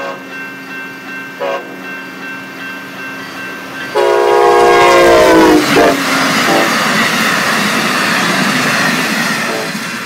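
Amtrak SC-44 Charger diesel locomotive sounding its horn for a grade crossing: a short note, then a long loud blast whose pitch drops as the locomotive passes. The passenger train then rushes by with wheel clatter, with two brief horn notes, and its noise fades near the end.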